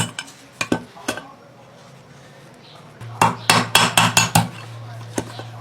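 Metal parts of an old desk fan being handled and knocked during repair, giving a series of sharp clinks and taps in two bursts. A steady low hum starts about three seconds in.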